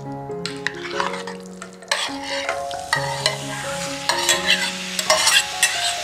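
Raw chicken pieces and ginger tipped into a hot electric pan, starting to sizzle and crackle, the frying hiss getting strong about two seconds in, with sharp clicks and crackles.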